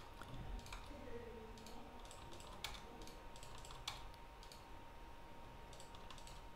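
Faint computer keyboard key presses: a handful of separate clicks spaced a second or more apart, over a faint steady high-pitched hum.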